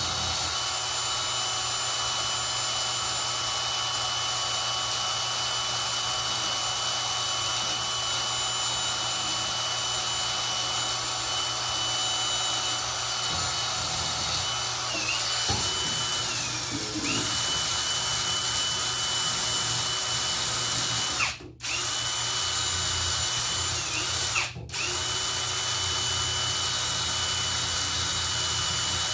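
Handheld power tool motor running at a steady speed while scrubbing corrosion off a tractor's battery cable terminal. Its whine sags for a moment around the middle, then it stops and restarts twice near the end.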